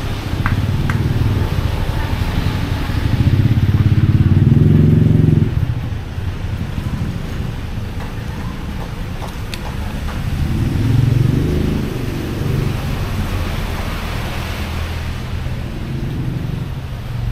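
Road traffic close by: vehicle engines passing, loudest about three to five seconds in and again around eleven seconds in, over a steady background hum of street and market noise.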